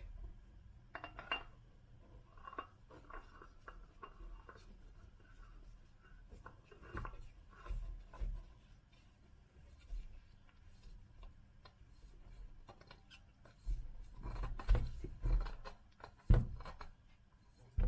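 Scattered clicks, scrapes and light knocks of hand tools and parts being handled, with several louder knocks near the end.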